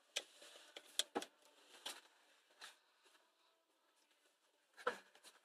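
Mostly quiet, with a few faint, scattered clicks and taps of hands handling things inside a car's cabin. The loudest comes near the end.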